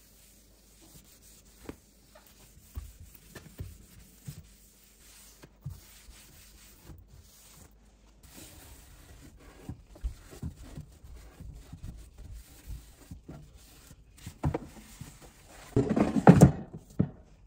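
A paper towel rubbing over a stone countertop, with scattered light knocks. Near the end comes a louder clatter of hard plastic as the air fryer's basket is handled.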